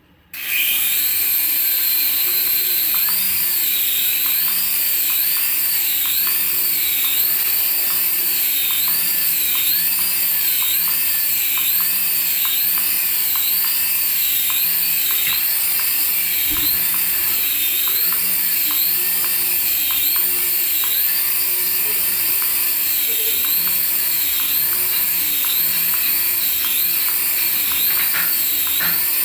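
Small electric motor of a toy remote-control vehicle whining at a high pitch, its pitch wavering up and down in a steady rhythm a little more than once a second.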